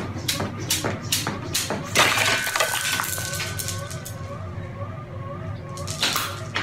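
Jump rope slapping a concrete floor in a steady rhythm, about three strokes a second, cut off about two seconds in by a loud crash. A fainter wavering tone follows, with another sharp clatter near the end.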